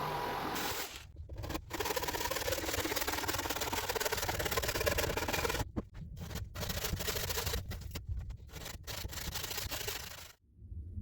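Rough, steady scraping of wood being shaped, in long stretches with a few short breaks, stopping shortly before the end.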